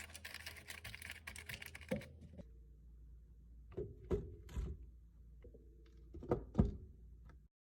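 Crackly rustling of a paper steamer liner being handled for about two seconds, then a few soft thumps, two of them close together near the end.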